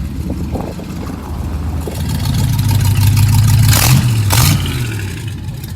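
A 1939 car's engine running at idle, then revved up from about two seconds in, with two sharp cracks near the peak, before it drops back toward idle.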